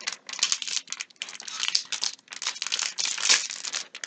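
Crinkly plastic wrapping of a small Shopkins toy package rustling and crackling in irregular bursts as it is handled and pulled at to get it open.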